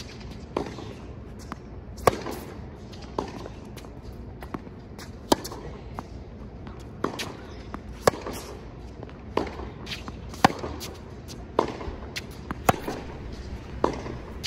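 Tennis rally on a hard court: sharp pops of the ball off racket strings and its bounces, about one a second. The strokes of the player nearest are the loudest, roughly every two and a half seconds.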